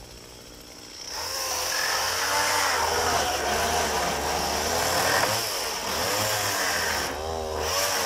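Petrol chainsaw ticking over quietly for the first second, then revved up and cutting through the boards of wooden pallet crates. Its pitch rises and falls as it bites into the wood and frees up again.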